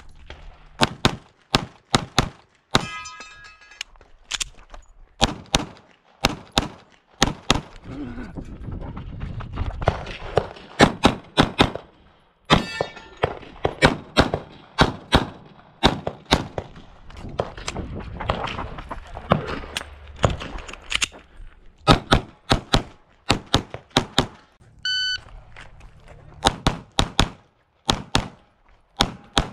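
Glock 45 9mm pistol being fired rapidly through a competition stage: many sharp shots in quick pairs and strings with brief pauses between, and a short electronic beep about 25 seconds in.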